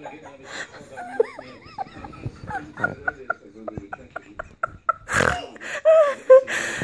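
Children giggling and laughing in short bursts, with quick rustles of a duvet under a playing puppy, and a loud breathy burst of laughter about five seconds in.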